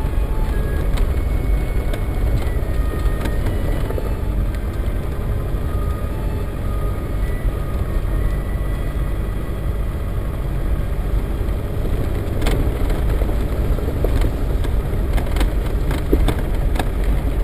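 Land Rover Defender 110 driving slowly along a rutted grassy dirt track, heard from inside the cab: a steady engine and tyre rumble. From about twelve seconds in, a run of sharp knocks and rattles joins it.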